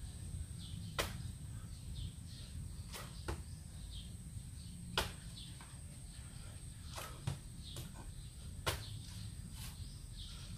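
Sharp slaps and claps from a person doing burpees with push-ups, coming at uneven gaps of about one to two seconds, some in quick pairs.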